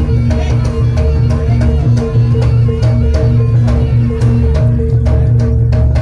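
Loud jaranan (kuda lumping) music: a steady drum beat over short repeating pitched notes, with frequent sharp percussion strikes.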